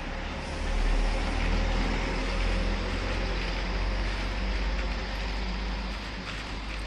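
Street traffic with a heavy vehicle's low engine rumble close by, swelling about a second in and easing off near the end.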